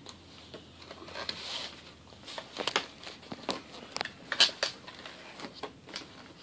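Toy packaging being opened and its contents taken out: plastic crinkling with scattered clicks and taps, the sharpest few clicks coming in the middle.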